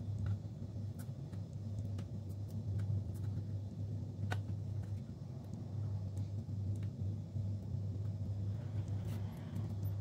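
A steady low hum, with scattered faint clicks and light rustles of hands handling a 2.5-inch SSD and sticking double-sided tape pads onto it. One sharper click comes about four seconds in.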